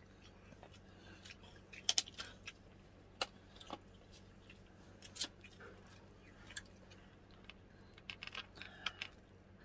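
Eating sounds: chewing with scattered sharp clicks and taps, several in quick succession near the end.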